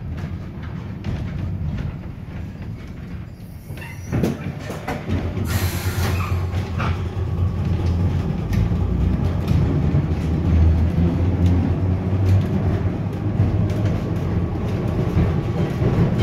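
Heritage electric tram pulling away: a knock about four seconds in and a short hiss of air from its compressed-air brakes, then the low hum and rumble of the car running on the rails, getting louder as it gathers speed.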